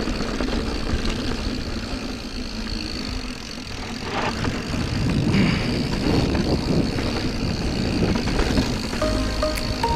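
Mountain bike riding a dirt singletrack trail, heard through a GoPro: a steady rush of wind on the microphone with tyre and rattle noise over the bumps. Background music comes back in near the end.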